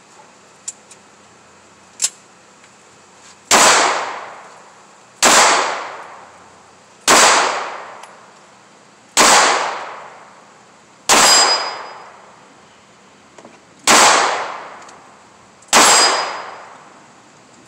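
SCCY 9mm pistol fired seven times in slow, deliberate succession, about one shot every two seconds. Each sharp crack is followed by a fading echo. Two small sharp clicks come in the first two seconds before the shooting starts.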